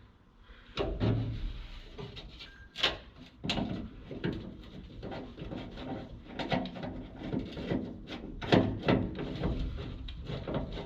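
Irregular small clicks and knocks of screws and a screwdriver being handled and started into the window regulator's mounting holes in a pickup truck's steel door.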